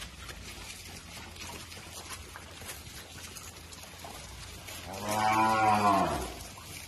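Gir cattle mooing once near the end, a single call of about a second and a half that drops in pitch as it dies away.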